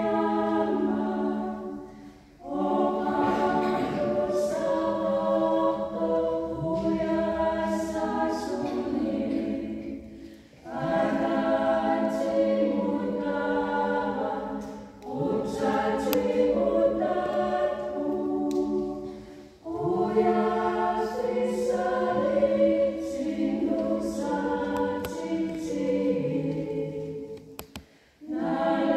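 Small mixed a cappella choir singing a song in Greenlandic, in long phrases broken by short pauses for breath, with the reverberation of a church.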